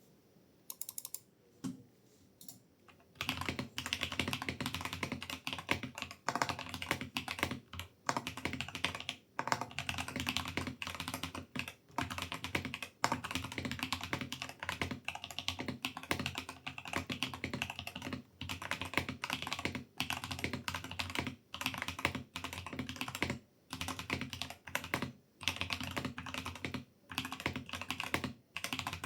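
Typing on a Freewolf K68 wireless mechanical keyboard: a few separate keystrokes, then fast continuous typing from about three seconds in, broken by short pauses every second or two.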